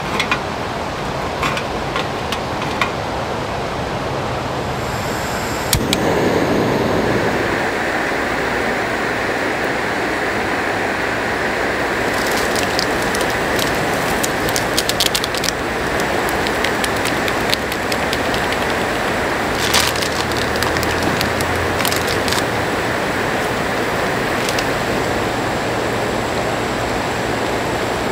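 Steady hiss of a canister gas camp stove burner under a mess tin of water at the boil, with a knock about six seconds in. Light crinkling and ticking from a ramen soup packet being opened and poured follows in the middle.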